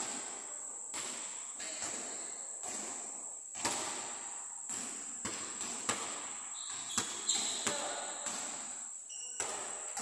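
Basketball bouncing on an indoor court floor as a player dribbles: sharp thuds at uneven intervals, most of them in the second half, over a steady high-pitched hiss.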